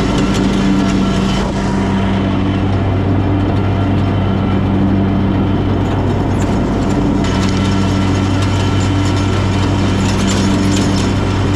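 Exmark X-Series zero-turn mower running steadily with its deck blades mulching cut tall grass, a steady low engine hum under the whir of the deck.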